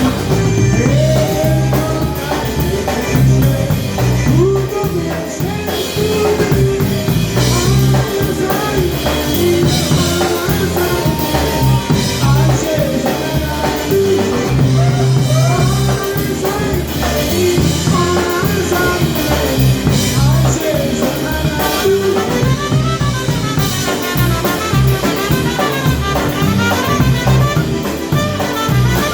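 Polka band playing live, with drum kit and brass.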